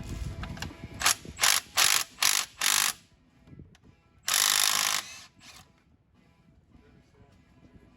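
Ratchet wrench clicking in five quick strokes, then one longer, steadier run of clicks about four seconds in.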